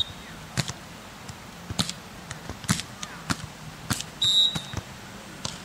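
Referee's whistle: a brief chirp at the very start, then a single short blast about four seconds in, the loudest sound here, signalling the server to serve. Scattered sharp slaps or claps sound between them.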